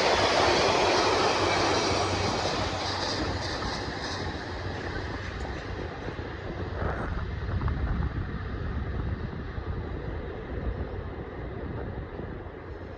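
A train rolling past on the track, its rumble fading and growing duller as it moves away, with a few faint knocks from the wheels partway through.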